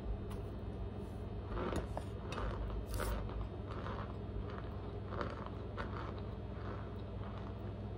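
A mouthful of cornstarch chunks being chewed: a soft crunch about twice a second, starting about a second and a half in.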